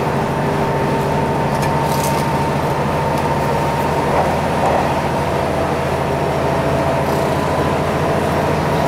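Diesel railcar running at speed, heard from inside the passenger cabin: a steady engine drone with a high whine over it, and a second whine joining about halfway.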